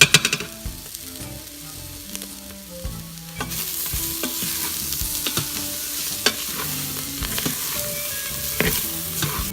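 Chickpeas being stirred and scraped with a spoon in an Instant Pot's stainless steel inner pot on sauté, sizzling. It opens with a sharp clatter, the sizzle grows louder about three and a half seconds in, and the spoon knocks against the pot now and then.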